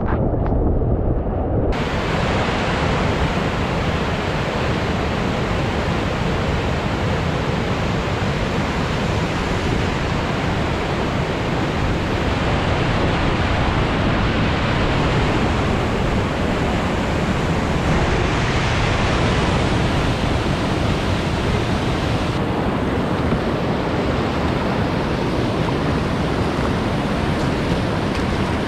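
Whitewater rapids rushing loudly and steadily around a kayak, a class 3/4 river run. The sound is muffled for about the first two seconds, then opens up.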